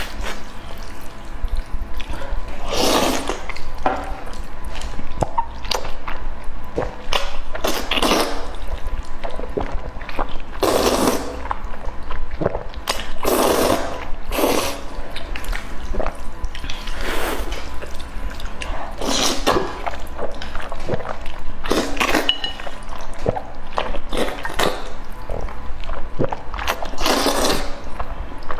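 Close-miked eating sounds: wet chewing and slurping of food in irregular bursts, one every second or two.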